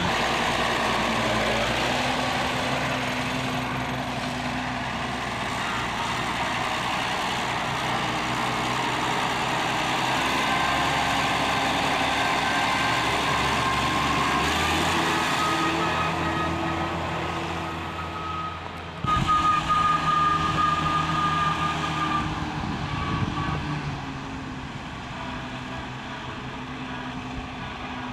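Oliver 88 diesel tractor's six-cylinder engine running, its pitch stepping up and down several times as the revs change, with a steady high whine over it. It gets louder for a few seconds just past the middle, then quieter toward the end.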